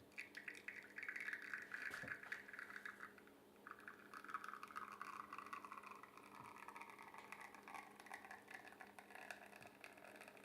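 Liquid being poured into a vessel in two pours: a short pour, a brief break about three seconds in, then a longer pour whose pitch slides steadily lower.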